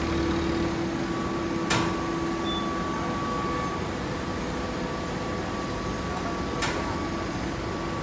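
Steady hum of a running hydraulic horizontal hay baler, its motor and pump holding a couple of steady tones, with two sharp clacks, one about two seconds in and one near the end.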